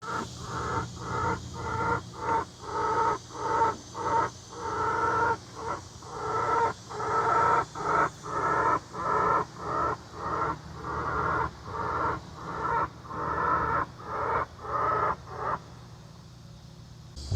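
A backyard chicken making a strange repeated call, about two a second over and over, stopping shortly before the end.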